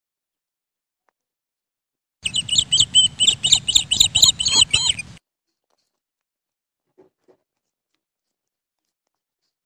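Small animal giving a rapid run of about a dozen high-pitched squeaking chirps for about three seconds; they start and stop abruptly.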